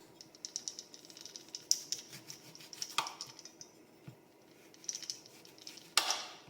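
A knife cutting a green lemon (lime) in half on a board: many small quick clicks and taps, with a few louder knocks of the blade, the loudest near the end.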